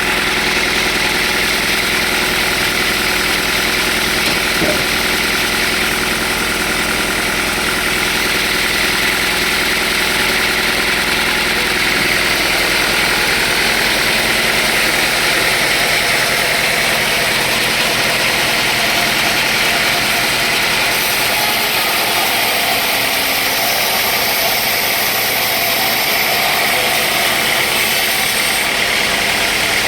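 Sawmill machinery running steadily, a loud, even machine drone with a constant hiss.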